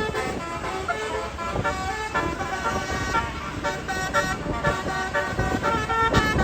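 A tour bus's basuri telolet horn, a multi-note musical air horn, playing a quick melody of short notes that change pitch several times a second, over the low rumble of the bus's engine.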